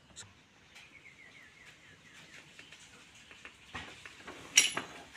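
A few light clicks and knocks, the sharpest and loudest about four and a half seconds in, over a faint run of quick, high chirps in the first half.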